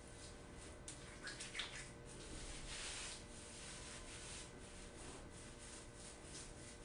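Faint, irregular rubbing and squishing of hands scrunching short, coarse 4C hair coated in curling cream and gel, with a few brief squeaks just after a second in and a fuller rustle about three seconds in.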